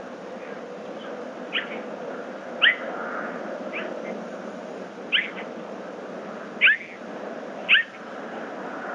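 Bobcat squirping: six short, high chirps, each a quick downward sweep, spaced a second or so apart, over a steady background hiss.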